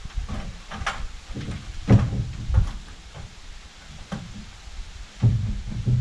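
Scattered wooden knocks and clunks, about five in all, from lumber roof trusses being handled and bumped into place, over a low rumble.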